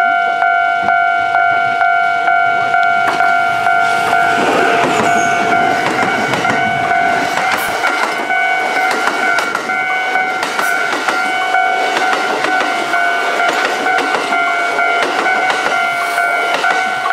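Japanese level-crossing alarm ringing with its repeated electronic bell strokes. From about four seconds in, a Kintetsu 22600- and 22000-series limited express train passes, its wheels clattering over the rail joints until near the end.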